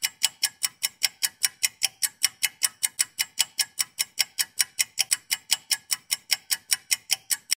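Fast, even ticking like a clock, about five ticks a second, which then cuts off suddenly.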